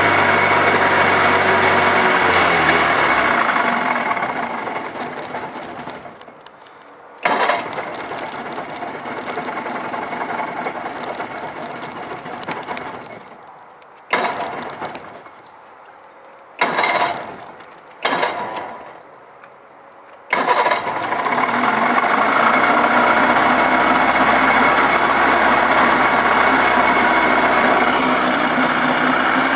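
Johnson 25 hp two-stroke outboard running, then dying out a few seconds in. It is restarted several times: the first restart runs for a few seconds before fading, and the next three catch only briefly and die. About twenty seconds in it fires and keeps running steadily.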